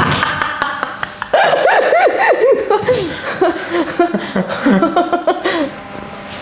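A woman laughing in short bursts that rise and fall in pitch, dying down near the end.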